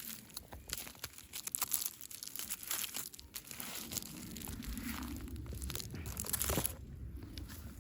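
Packaging crinkling and tearing as it is opened by hand: a dense run of irregular crackles, loudest shortly before the end, then quieter.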